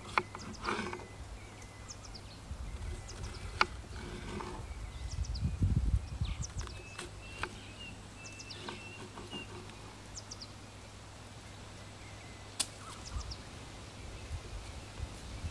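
Chef's knife cutting a green bell pepper on a wooden cutting board: a few sharp knocks of the blade on the board, spread out, with small birds chirping around. A brief low rumble comes near the middle.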